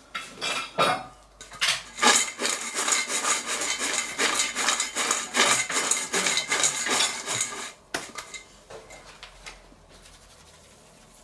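Thin-cut fries being shaken and tossed in a stainless steel bowl: a quick, busy scraping rattle of the fries against the metal that stops about eight seconds in.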